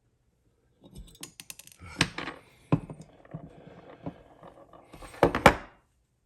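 Small metal parts clicking and knocking irregularly, with a few louder taps, as a roll pin held in a hollow roll pin starter punch is being started into an AR-15 lower receiver.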